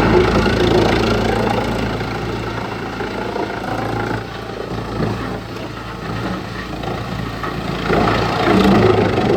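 Wood chipper's engine running steadily, with louder, rougher spells at the start and again near the end.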